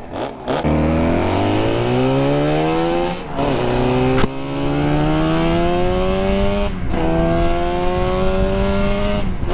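Tuned Suzuki RG500 two-stroke four-cylinder, bored out to 575 cc with a custom exhaust, accelerating away through the gears. Its pitch climbs, drops at each of four upshifts about 3, 4, 7 and 9 seconds in, then climbs again.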